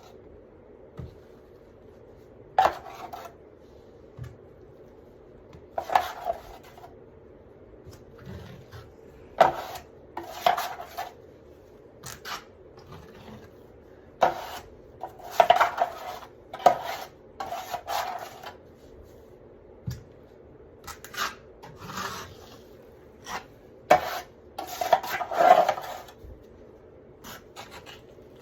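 Metal drywall knife scraping and clinking against a mud pan and spreading fast-setting joint compound over a mesh-taped patch: many short, irregular scrapes and clinks, over a faint steady hum.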